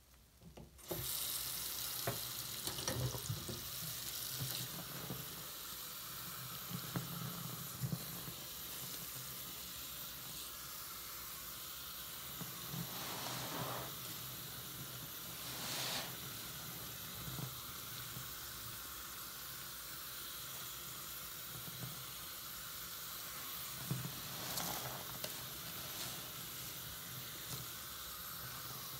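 Bathroom sink tap turned on about a second in and running steadily into a basin of suds, while a soapy yellow sponge is squeezed and squished under the stream, with wetter squelches every so often.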